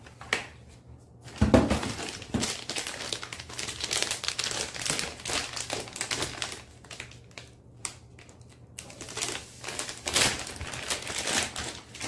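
Plastic packaging bags crinkling and rustling in the hands as wrapped parts are unpacked, with a sharp knock about a second and a half in.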